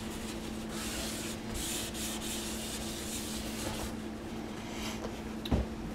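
Paper towel rubbing and wiping around a sink drain's basket strainer, scrubbing off excess silicone in a run of uneven strokes. A single short knock sounds near the end.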